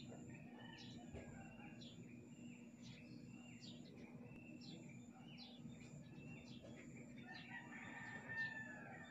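Faint birdsong outdoors: a small bird repeating short high notes that slide downward, roughly one and a half a second, with a rooster crowing faintly near the end over a low steady hum.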